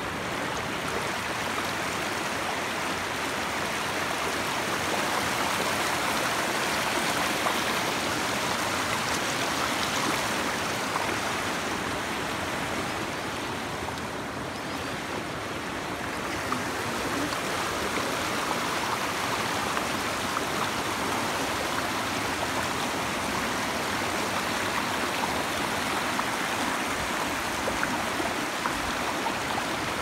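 Shallow, clear river running over rocks and stones, a steady sound of flowing water that softens briefly about halfway through.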